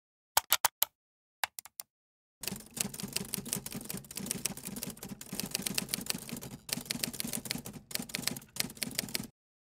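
A few quick clicks, then a rapid, continuous clatter of typewriter keys, a typing sound effect, that starts a couple of seconds in and cuts off abruptly near the end.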